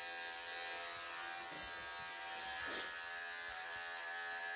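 Wahl professional electric pet clippers running with a steady buzz.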